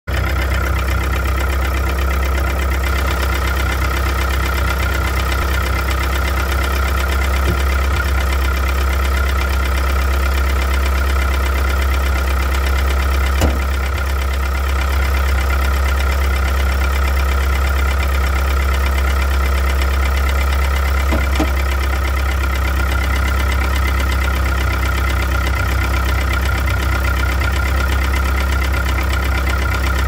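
Chrysler 420A 2.0-litre four-cylinder engine running steadily with a knocking noise, which the owner suspects may be a failing rod bearing.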